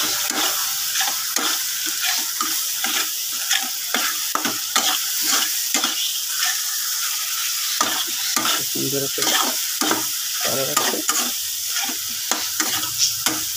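Onion-and-spice masala sizzling in oil in a kadai as it is fried down, while a spatula stirs it in repeated short scraping strokes against the pan.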